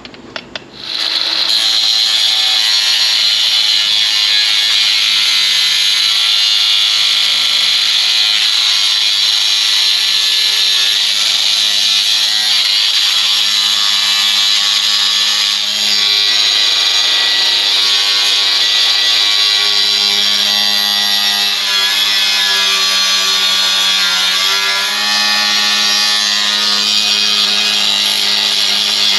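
A few clicks, then a Milwaukee M18 Fuel cordless angle grinder spins up about a second in and runs steadily with a high whine. Its flap disc is sanding the rough edges off a sheet-metal trough cover. The pitch and level dip briefly a few times as the disc is pressed on and eased off.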